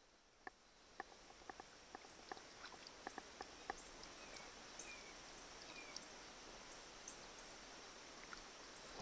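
Near silence: faint small drips and clicks of water as an outboard exhaust seal is rubbed clean by hand under water in a tub, with a few faint high chirps around the middle.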